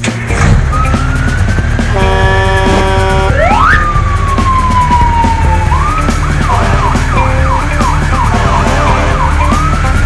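Siren wailing: one slow rise and fall in pitch, then a run of quick repeated yelps through the second half, over a steady low rumble.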